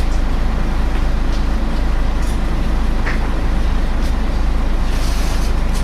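Inside a moving Scania L113 single-deck bus: the steady drone of its six-cylinder diesel and its hoover-like cooling fan over a heavy low road rumble, with a few short clicks and rattles from the body.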